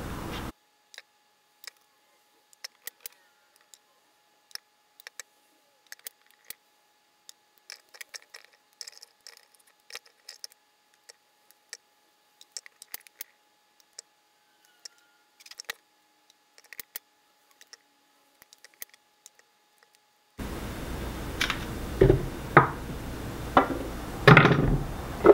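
Chef's knife cutting apples on a wooden cutting board, with apple pieces dropped into a plastic blender jar. For most of the time there are only sparse faint clicks and taps over near silence. Near the end the room sound returns with a few louder knocks.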